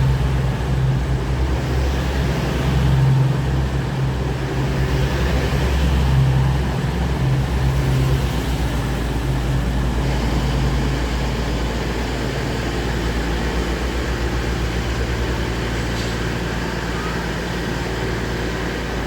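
Diesel train engine running with a low, throbbing drone; the throb eases about halfway through, leaving a steadier low hum.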